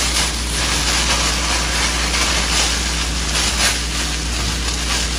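Chicken wings deep-frying in hot grease: a steady sizzle with light crackles, over a low steady hum.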